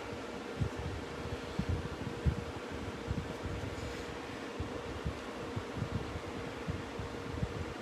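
Steady fan-like background hum with a faint steady tone, and irregular soft low knocks from small scroll-sawn wooden pieces being handled and set down on the work table.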